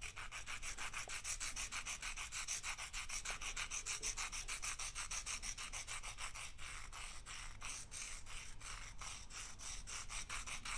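Charcoal pencil point rubbed back and forth on the sandpaper of a Nitram sanding paddle: a soft, even rasping of about five strokes a second as the charcoal is sanded down to a long, tapered point.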